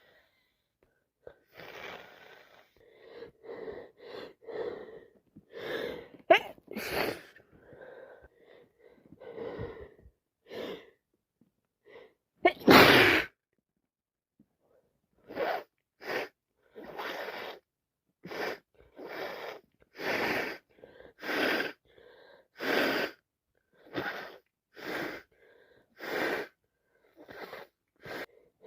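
A person with a cold and allergies sneezing: one loud sneeze about 13 seconds in, with short breathy sounds before it. It is followed by a long run of short, quick breaths, about one a second.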